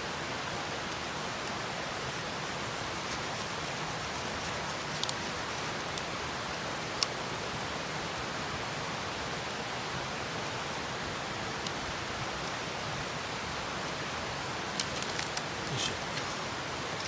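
Wood fire burning with a steady hiss and scattered sharp crackles and pops, a quick run of pops near the end.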